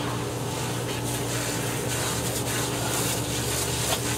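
Garden hose spraying, a steady hiss of water pattering on legs, shoes and grass, over a steady low mechanical hum from outdoor equipment.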